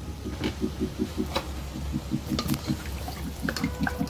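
A ladle stirring watery soup in a pot: liquid sloshing, with several sharp clicks of the ladle against the pot.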